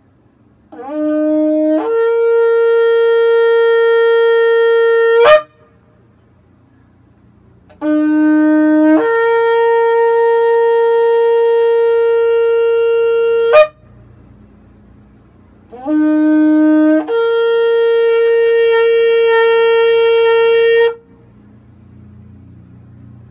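A shofar blown in three long blasts a few seconds apart. Each blast opens on a short low note, jumps up to a higher note held for about four seconds, and cuts off abruptly.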